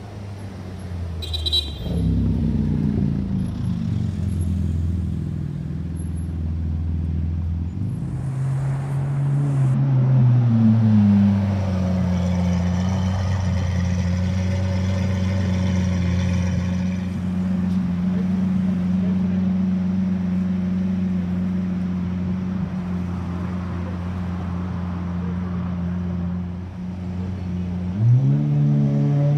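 Supercar engine running steadily at low revs. Its pitch rises briefly about eight seconds in and settles back, then climbs again near the end as the revs rise.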